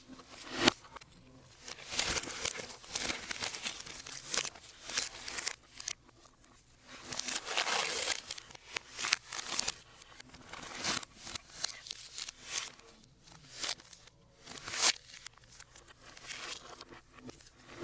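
Packaging being handled and torn open: irregular crinkling, rustling and tearing of paper or plastic wrapping, with a few sharp crackles.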